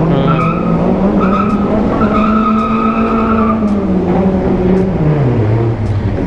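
A vehicle's tires squealing in a burnout, a high steady screech that breaks off and resumes a few times, over the engine revving hard and then dropping back about five seconds in.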